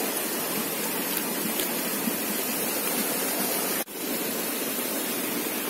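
Steady rushing of flowing creek water, an even hiss with little low rumble, briefly cut off about four seconds in.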